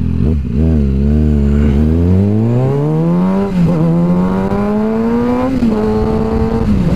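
The inline-four engine of a 2013 Kawasaki ZX-6R 636, fitted with a full M4 exhaust, accelerating hard through the gears. The engine note climbs, drops sharply at an upshift about three and a half seconds in, then climbs again. It drops at a second shift and holds steady near the end.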